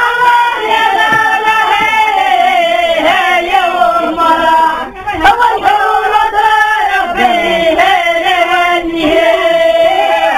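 A group of voices singing a traditional wedding song together in long, wavering lines, with a short break about halfway through. The recording is dull and muffled, with no treble.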